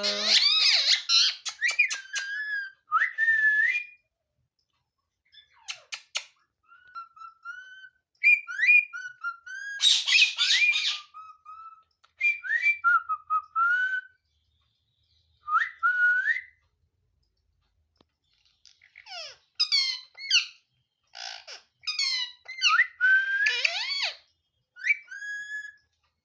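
Pet ringneck parrot whistling and squawking in short bursts with pauses between: clean rising whistles mixed with harsh screeches, the loudest screeches about a second in and again around ten seconds in.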